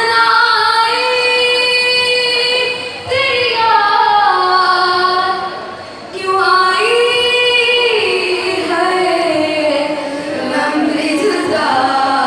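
A woman's solo voice singing a slow, long-held melody into a microphone, with long pitch glides between notes. The phrases break briefly about three and six seconds in.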